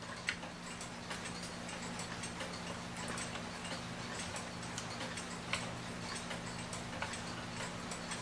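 A mechanical clock ticking, with a few sharper clicks and taps of small case parts being handled and fitted, over a steady low hum.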